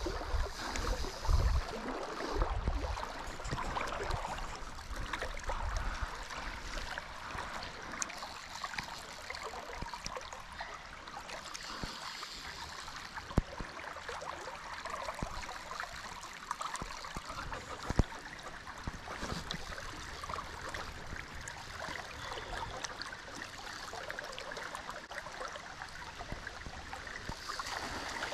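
Shallow river flowing and rippling with a steady rush of water. A few low thumps in the first seconds and two sharp clicks later on.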